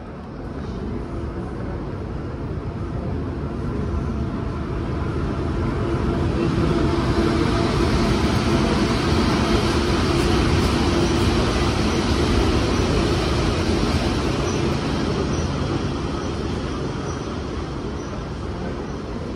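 A Russian Railways locomotive-hauled passenger train rolling past close by, its running noise building to a peak about halfway as the locomotive passes and then easing off as the coaches go by. A steady hum sits under the noise through the loudest part.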